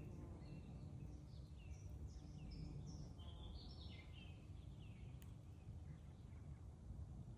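Faint woodland birdsong: several small birds giving short chirps and whistled notes, busiest in the first half, over a steady low background rumble.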